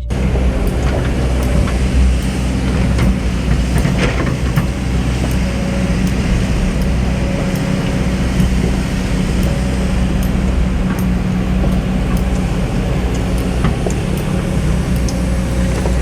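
Diesel engine of a hydraulic excavator running steadily with a low hum, with scattered light clicks over it.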